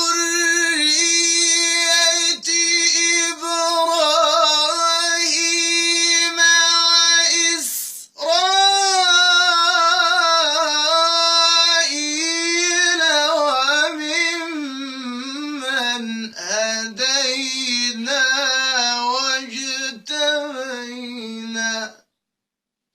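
A solo male voice reciting the Quran in a slow, melodic tajwid style, without accompaniment. It holds one long steady note for about eight seconds, takes a quick breath, then winds through an ornamented phrase that sinks lower in pitch before stopping near the end.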